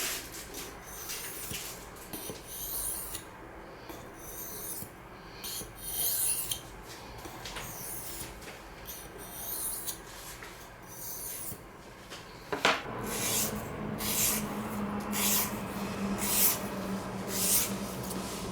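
Steel knife blade (CPM S30V Spyderco Paramilitary II) being stroked across a wet sharpening stone in a series of separate scraping strokes. About two-thirds of the way through there is a sharp knock, and a low steady hum then runs under the continuing strokes.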